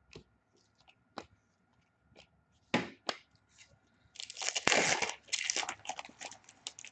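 A foil trading-card pack wrapper being torn open and crinkled, with dense crackling that is loudest from about four seconds in. It is preceded by a few short light clicks and two sharp rips near the middle.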